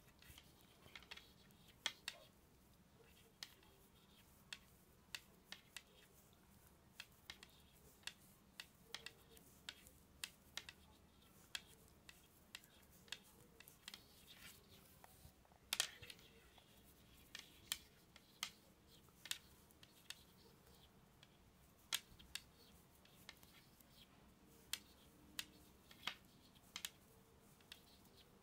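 Wooden knitting needle tips clicking and tapping against each other while a row is purled: sharp, irregular clicks about once a second over a quiet background.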